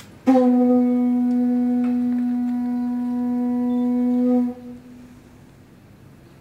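Hawaiian conch shell trumpet (pū) blown in one long, steady note that starts suddenly just after the start and is held for about four seconds before stopping.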